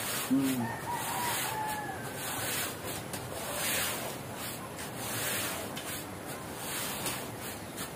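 Close-up chewing and mouth sounds of people eating by hand, a run of short soft noisy smacks and rustles, after a brief hum at the start. A faint high-pitched call rises and falls about a second in.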